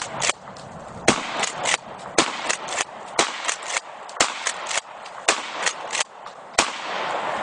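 Remington 870 pump-action shotgun fired in a rapid string of blasts, roughly one a second, with smaller clacks between the shots.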